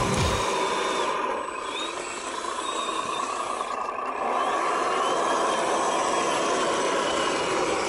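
Radio-controlled 1/10-scale KamAZ-4911 truck's brushed 550-size electric motor and gear train whining steadily under load as it crawls through swamp water and mud, a little louder from about halfway.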